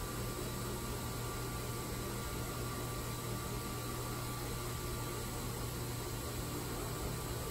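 Steady low hum over hiss from the motor of a Sunpro motorized roll-down shade screen, running as the screen lowers.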